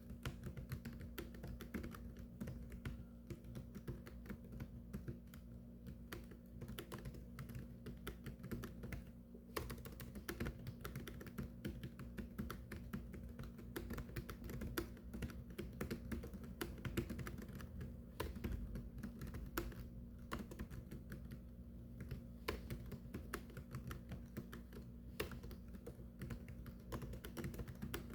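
Continuous typing on a keyboard: a dense, unbroken stream of key clicks over a low steady hum.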